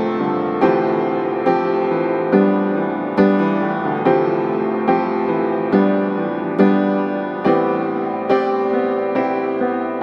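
Piano music laid over the footage: a note or chord struck a little more than once a second, each one ringing and fading before the next.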